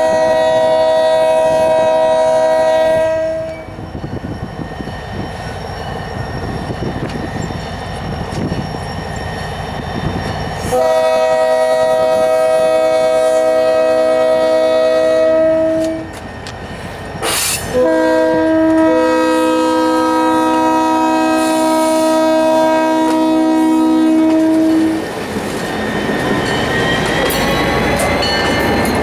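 Diesel locomotive's multi-note air horn blowing the grade-crossing signal: long, long, short, long, the first blast already sounding at the start. Between and after the blasts the train rumbles past with wheels clicking over the rail joints.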